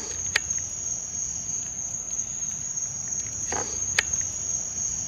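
Crickets trilling in a steady high tone, with sharp pops from a burning wood fire about half a second in and again near four seconds.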